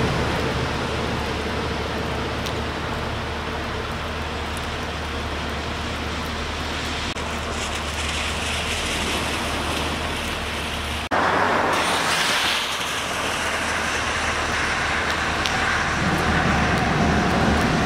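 Steady rain falling on a wet street, an even hiss over a low hum. About eleven seconds in the sound cuts abruptly to a brighter, louder hiss.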